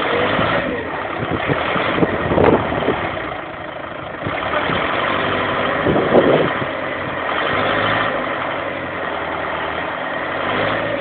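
Engine of an ACE 3-ton forklift running and working, its level rising and falling, with louder knocks about two and a half and six seconds in.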